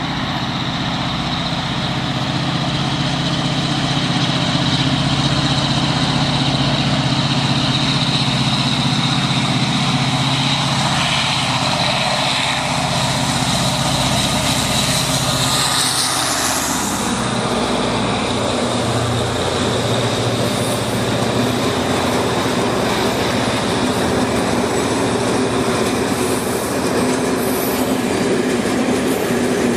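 Diesel freight locomotive approaching and running past with its engine note growing louder. After about seventeen seconds, a long train of loaded hopper wagons rolls past with a steady rumble of wheels on the rails.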